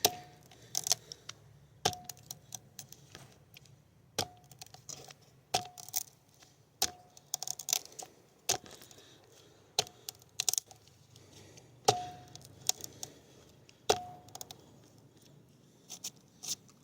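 Tip test on an out-the-front stiletto knife: the blade tip is driven repeatedly into a hard target. About a dozen sharp stabbing impacts land one to two seconds apart, each with a brief ring.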